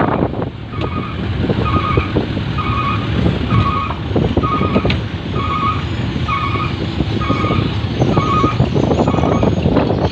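Back-up alarm on heavy equipment beeping in short, evenly spaced pips a little over once a second, over a low machine rumble and wind noise.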